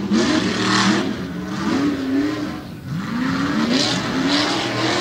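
Two tough trucks' engines revving hard as they race through a dirt course. The pitch climbs and falls with the throttle, sags briefly about three seconds in, then climbs again.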